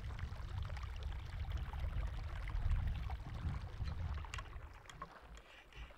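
Wind buffeting the microphone over the steady rush and trickle of a small mountain stream, with a few light clicks; it fades away near the end.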